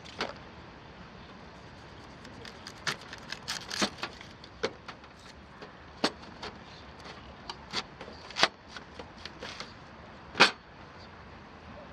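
Campfire crackling, with irregular sharp pops of burning wood, one louder pop near the end.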